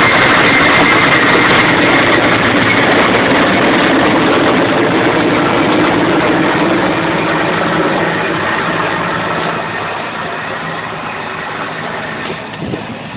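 Sikorsky S-64 Skycrane heavy-lift helicopter flying with an underslung load: a steady turbine and rotor noise with a high whine on top. It fades gradually in the second half as the helicopter moves away.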